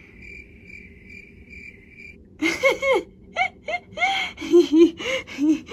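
A faint high pulsing tone for about two seconds, then laughter over a Skype video call, in short chuckles that rise and fall from about two and a half seconds in.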